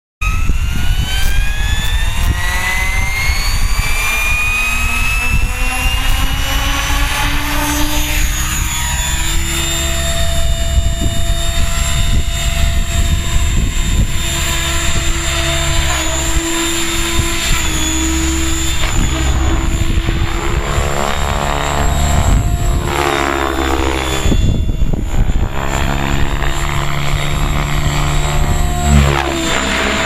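Compass Atom 6HV electric RC helicopter, driven by a Kontronik Pyro 30-12 brushless motor, spooling up: a rising whine from the motor and rotor over the first several seconds. It then flies with a steady high whine whose pitch shifts as it manoeuvres, over a low rumble of wind on the microphone.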